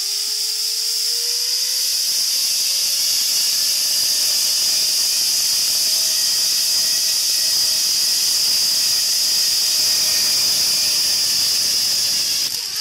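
Loud, steady, high-pitched drone of a cicada chorus. A faint whine rises slightly and fades out in the first few seconds.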